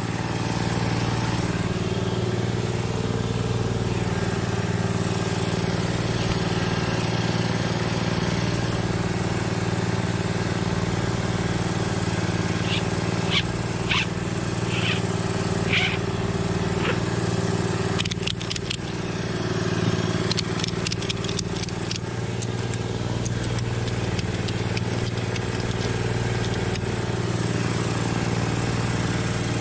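An engine running steadily at a constant speed, with a series of short metallic clinks and rattles about halfway through.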